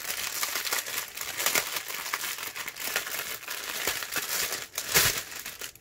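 Clear plastic wrap crinkling and crackling as it is unwound from a bundle of small bags of diamond-painting drills. The crackling is continuous, with a louder crackle about five seconds in.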